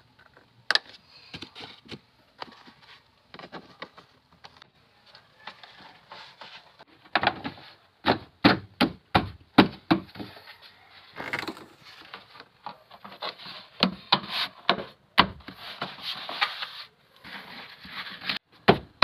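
Car interior plastic trim panels and floor carpet being handled and pressed back into place: a string of sharp knocks and clicks, thickest from about seven seconds in, among rubbing and rustling.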